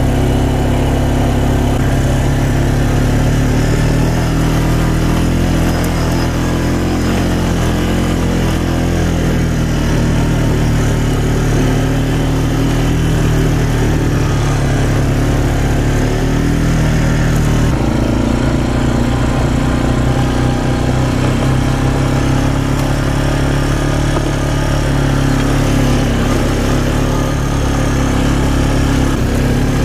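Quad bike (ATV) engine running steadily while riding over a rough forest track. The engine note shifts a little past halfway through.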